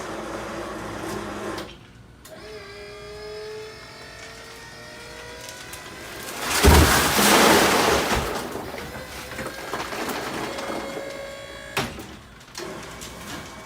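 Electric dump-dolly lift motor whining as it tilts a trash can full of pea gravel. It stops briefly near the start, then restarts with a slowly rising whine. About halfway in the gravel pours out in a loud rush lasting about two seconds, the loudest sound. The motor runs on, then stops with a click and starts again near the end.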